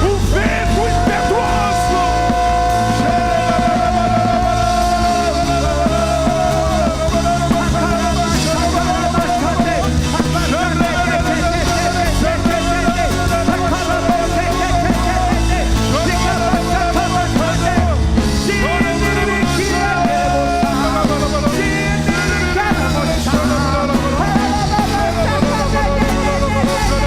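Loud band music with a singing voice holding long, wavering notes over a full accompaniment.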